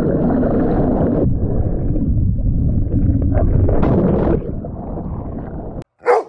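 Muffled churning and sloshing of ocean water heard with the microphone at and under the surface, heavy in the low end; it turns duller and quieter as the camera goes under a breaking wave. Near the end it cuts off, followed by a brief loud pitched sound.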